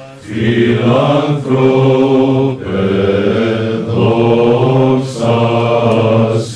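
Men's voices singing Orthodox church chant in long held notes over a steady low note, in phrases with short breaks between them.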